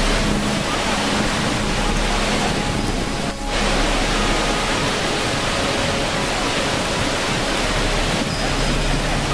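Waterfall rushing over rocks: a steady roar of falling water that dips briefly about three and a half seconds in.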